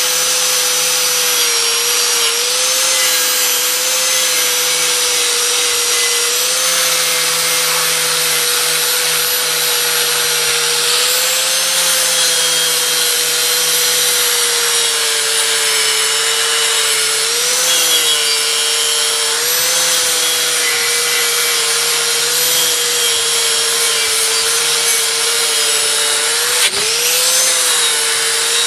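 Electric grinder running steadily, its whine dipping briefly in pitch several times as it is pressed against the aluminium sewing-machine cover to strip paint and polish it.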